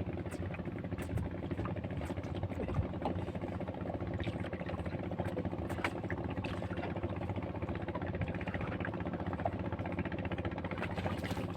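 A small boat's engine running steadily at an even speed, with a few faint clicks and knocks over it.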